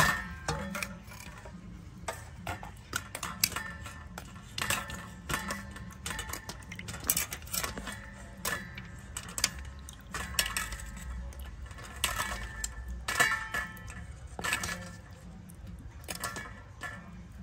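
Irregular clinks and knocks of kitchenware, dishes and utensils striking each other, some with a brief ring after the strike.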